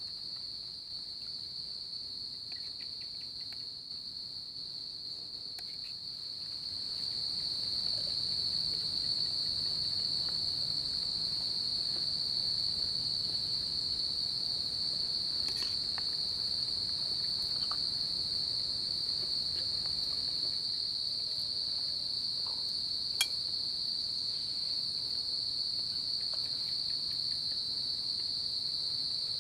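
A steady high-pitched insect chorus that runs unbroken and grows louder about seven seconds in. A few soft clicks sit on top of it, the sharpest about two-thirds of the way through.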